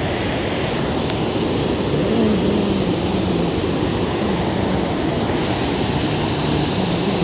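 Muddy monsoon floodwater pouring over a concrete weir and churning in the pool below: a loud, steady rush of falling water.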